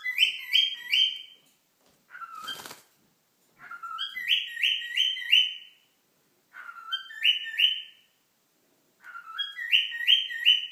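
Cockatiel whistling the same short tune over and over, about four times: a lower note followed by three or four quick higher notes. A brief burst of noise comes about two and a half seconds in.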